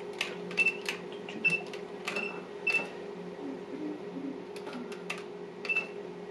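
A run of sharp clicks from a measuring instrument being set up to take temperature readings, several of them followed by a short high electronic beep, over a steady low electrical hum.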